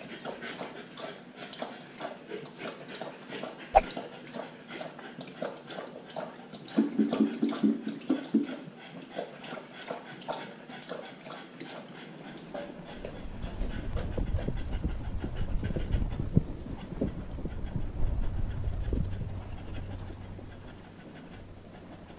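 Husky puppy panting quickly, heard close up from a harness-mounted GoPro on her back. There is a sharp tap about four seconds in, and from about halfway a low rumble as she moves about and the camera rubs against her.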